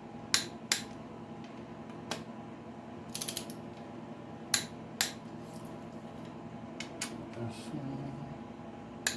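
Ratcheting torque wrench working on connecting rod bolts: sharp single metallic clicks at irregular intervals, with a quick run of ratchet clicks about three seconds in.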